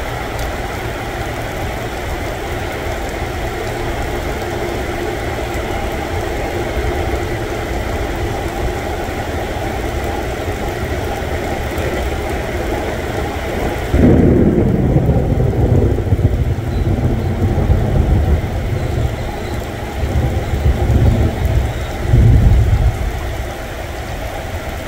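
Heavy rain falling steadily. About two thirds of the way in, a sudden loud crack of thunder rolls into a falling rumble, and more loud rumbles of thunder come near the end.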